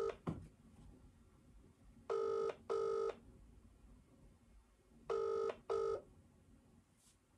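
Telephone ringback tone on a speakerphone, in the British double-ring pattern: two double rings about three seconds apart, with the end of a third at the very start. The call is ringing out, not yet answered.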